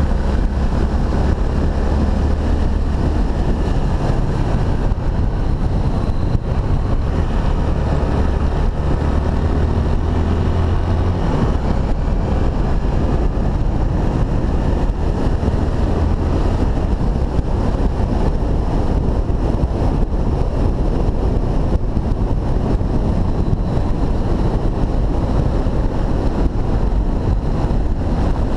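Honda XRE300's single-cylinder engine running under way on a dirt road, with heavy wind rushing over the microphone. The low engine note is strongest for the first third and eases off about eleven seconds in.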